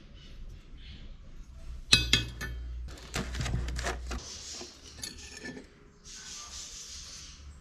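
Steel pieces clinking as they are handled and set down, with one sharp metallic clink that rings briefly about two seconds in and a few lighter clicks after it. Two stretches of scraping or rubbing follow in the second half.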